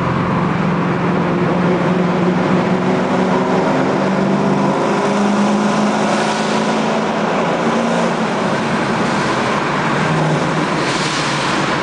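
Mustang GT's V8 exhaust through aftermarket Boomtubes, a steady engine drone at an even cruise inside a road tunnel, heard from the driver's seat. A rushing hiss swells briefly about six seconds in and again near the end.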